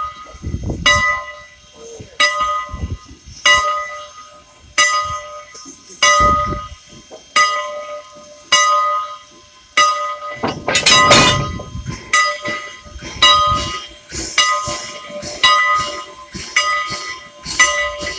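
Steam locomotive's bell ringing steadily, one clang about every second and a quarter. A short rush of noise comes just past the middle.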